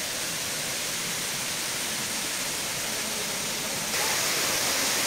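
Steady rush of falling water from the Daragadi stream's waterfall, a little louder about four seconds in.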